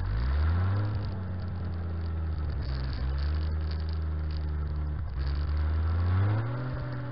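1956 Willys Jeep CJ5's Hurricane four-cylinder engine running under load as the Jeep is driven: the revs rise over the first second, hold steady, dip briefly about five seconds in, then climb again near the end.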